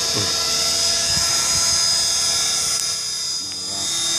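Align T-REX 450 electric RC helicopter running, with a high, steady whine from its motor and gears over the spinning rotor.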